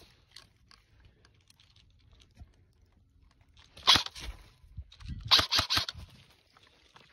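Footsteps crunching through dry fallen leaves, in two short bursts about four and five seconds in.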